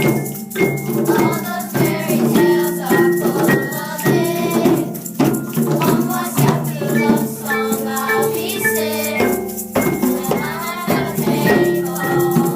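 Music: a song with singing over sustained instrumental notes and a steady beat.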